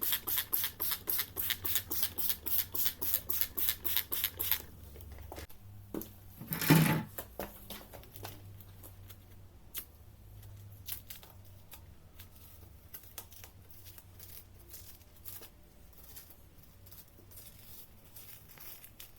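Rapid back-and-forth rubbing strokes by hand on a car headlight lens, about four to five a second, stopping after about four and a half seconds. A single loud thump follows a couple of seconds later, then scattered light clicks and handling noises.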